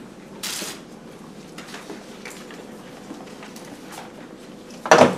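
Marker working on a whiteboard: faint scratches and light taps, with a short hiss about half a second in and a sharp knock near the end.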